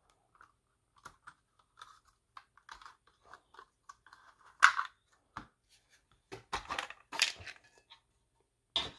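Small plastic clicks, scrapes and knocks as a 3D-printed plastic box is taken apart and an EasyLap lap-timing unit is unplugged and lifted out of it. A sharper click comes about halfway through, and a short clatter of plastic knocks around seven seconds in.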